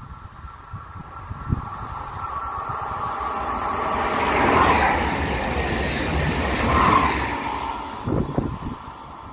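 A regional multiple-unit passenger train passing through at speed: a rising rush of wheel and rail noise that is loudest around the middle, with two short louder tones as it goes by, then falls away quickly.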